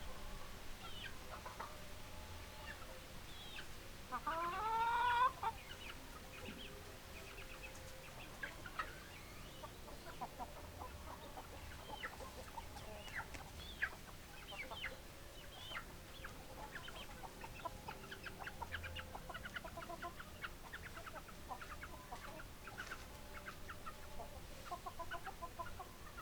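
Chickens clucking, a run of short calls throughout, with one louder drawn-out call about four seconds in.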